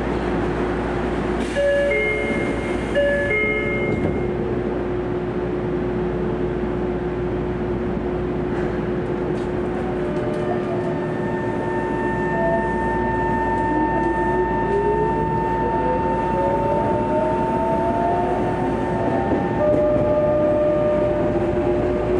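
Tokyo Metro 03 series train pulling away from a station, over a steady hum. Near the start comes a short two-part electronic chime. About ten seconds in, the four-quadrant chopper control sets up a steady whine, and a second whine rises steadily in pitch as the traction motors gather speed.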